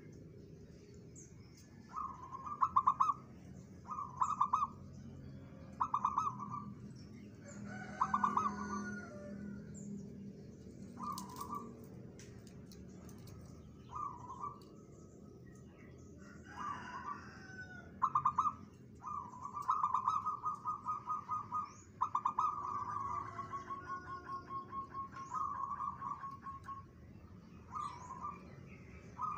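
Zebra dove singing: repeated phrases of rapid, trilling coos, mostly short bursts every second or two, with longer drawn-out runs about two-thirds of the way through.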